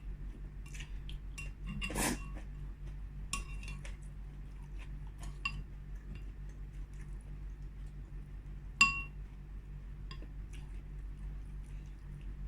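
Eating utensils clinking against a soup bowl, a series of light clinks with a sharper ringing clink near 9 s in and a heavier knock about 2 s in, over a steady low hum.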